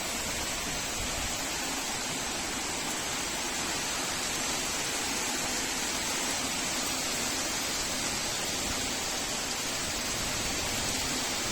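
Heavy downpour: a steady, even hiss of rain.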